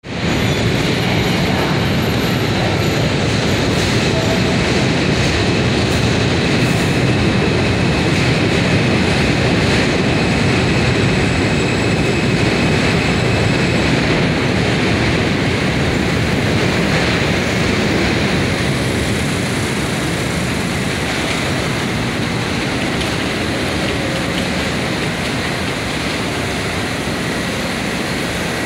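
New York City Subway F train of R160 cars rolling along the track: a loud, steady rumble of wheels on rail that eases a little after about 18 seconds as the train slows.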